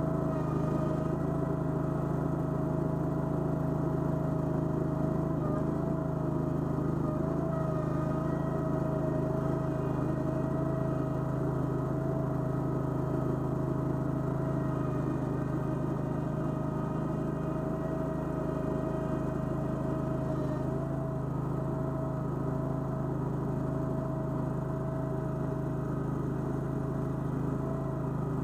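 Toro Dingo mini skid steer's gasoline engine running at a steady speed, with a high steady whine over it that wavers slightly in pitch.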